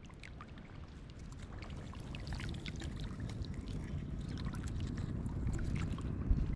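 Shallow water sloshing and splashing, with many small splashes and drips, getting louder over the first few seconds.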